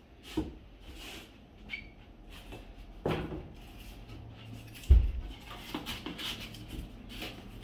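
Thick cardboard panels being handled and slotted together: scattered light knocks and scrapes, with a loudest dull thump about five seconds in.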